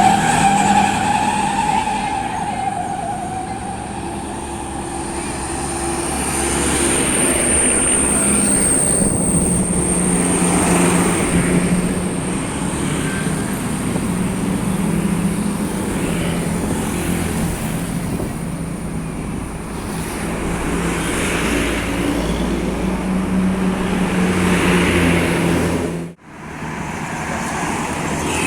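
Buses and road traffic passing: engines running with steady road noise, rising and falling as vehicles go by. The tail of a telolet musical bus horn fades out about a second in, and the sound cuts out for an instant near the end.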